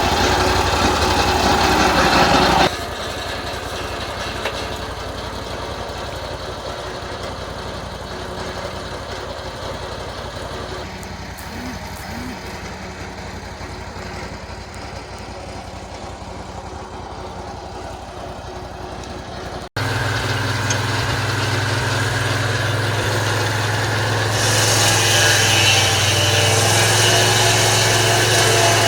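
Band sawmill's engine running steadily, its sound changing abruptly twice, with a strong steady hum in the last part.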